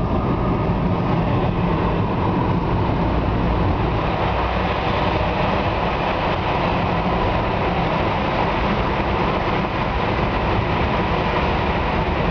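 Steady engine and tyre noise of a car driving in motorway traffic, heard from inside the car. About two seconds in, the car enters a road tunnel and the rushing noise grows a little brighter.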